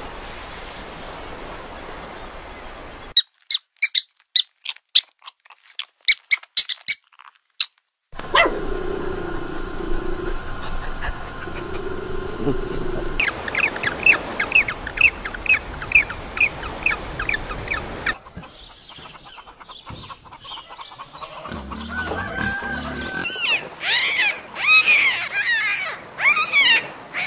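Several animal sounds follow one another: sharp high chirps over near silence, then a run of quick, evenly repeated high chirps, and near the end dolphins whistling in rising and falling squeals.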